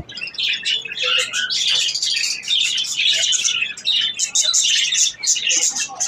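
A cageful of budgerigars chirping and chattering, with many quick, high chirps overlapping without a break.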